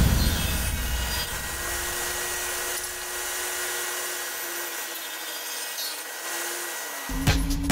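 Table saw ripping a pallet-wood board along the fence, a steady noisy whir of blade through wood that slowly gets quieter.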